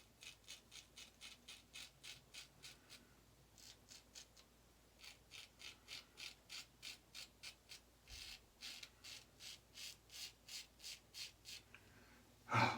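Autostrop open-comb safety razor scraping through lathered stubble in quick short strokes, about four a second, in three runs broken by brief pauses. The blade's cutting is plainly audible, the strong audio feedback of an open comb with a lot of blade exposure.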